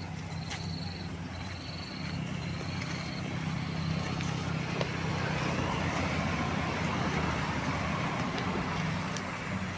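Motor vehicle engine running steadily, with road noise swelling louder from about four to nine seconds in as traffic passes. A faint high beep repeats about once a second in the first three seconds.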